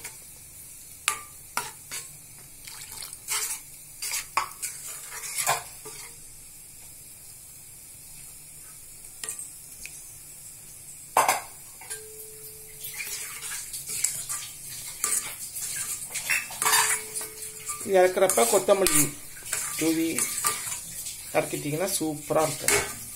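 Steel ladle stirring a thick green gram dal gravy in a stainless steel kadai, scraping and clinking against the pan in irregular strokes, busier and louder in the second half.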